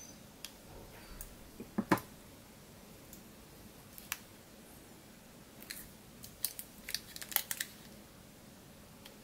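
Small metal paint cans in plastic shrink wrap handled in the hands: scattered sharp clicks and taps. The loudest come about two seconds in, and a quick run of them comes around six to seven and a half seconds.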